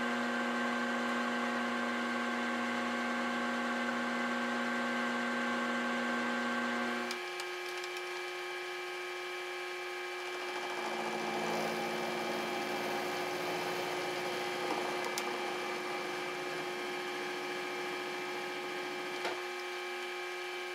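Milling machine spindle running with an end mill taking a light cut into the end of a thick-walled aluminium tube, a steady hum of several tones. About seven seconds in the tones shift to a different pitch, and a rougher cutting noise comes in for a few seconds after that, with a couple of short clicks later on.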